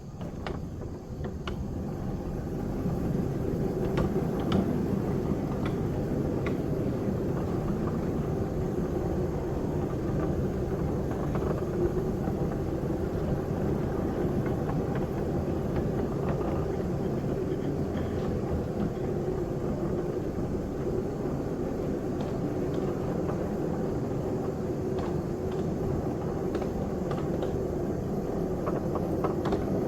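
A vehicle in motion: steady running and road noise with a few light rattles and knocks.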